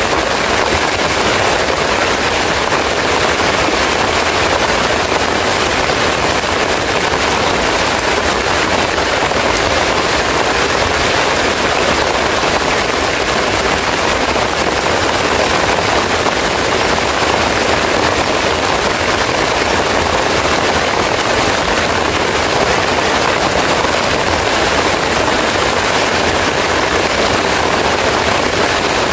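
Heavy rain falling steadily on banana leaves and plants, a dense, even patter of drops.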